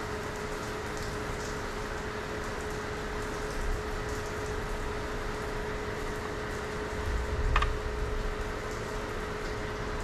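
Steady background hiss with a constant low hum, under faint small handling sounds of wires being spliced and wrapped with electrical tape; a short knock about seven and a half seconds in.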